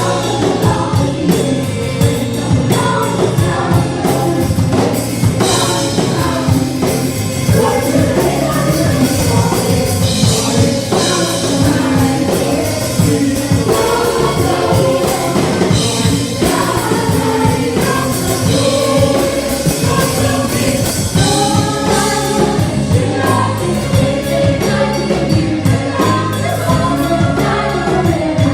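A choir singing an upbeat gospel worship song over band accompaniment with a steady beat.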